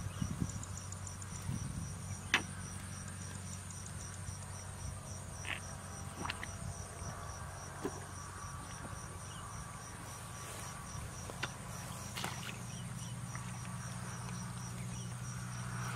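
Insects chirping in grass: a high, evenly pulsing chirp over a steady high-pitched buzz. A low steady hum runs beneath, with a few sharp clicks, the loudest about two seconds in.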